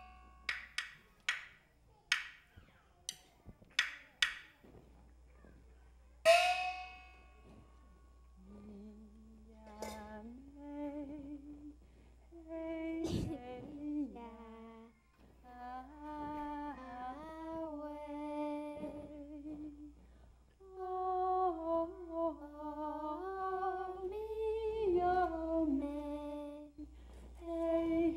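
A string of sharp percussion strikes in the first few seconds and one ringing stroke about six seconds in, then a slow wordless melody hummed by a voice, with long held notes that glide between pitches.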